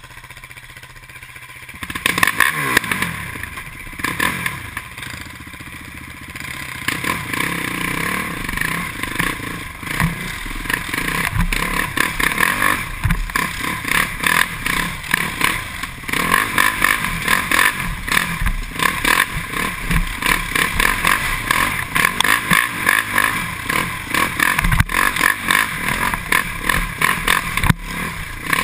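Can-Am DS450X MX quad's single-cylinder four-stroke engine, quieter for the first two seconds, then revving up in rising and falling glides and running hard under load. The chassis rattles and knocks over bumps in the trail.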